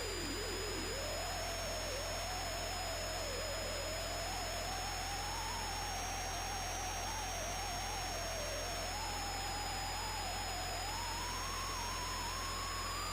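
Electronically processed audio effect: a single wavering, theremin-like tone that drifts slowly upward in pitch over a steady hiss and a constant low buzz, with two faint steady high whines above.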